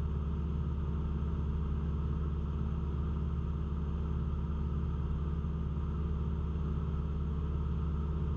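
Cessna 172's engine and propeller droning steadily at constant power in flight, heard from inside the cockpit.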